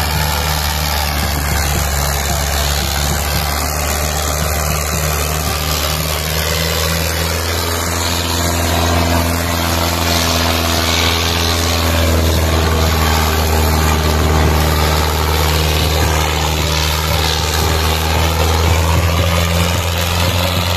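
Tractor diesel engine running hard and steadily under load, pulling a disc plough through the soil. The engine note is a deep, even drone that grows a little louder past the middle.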